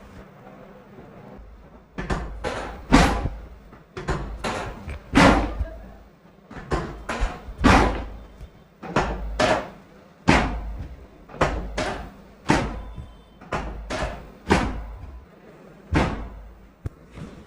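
About twenty sharp thumps of a chiropractic body treatment, coming in uneven bursts of two to four, each with a short ring after it.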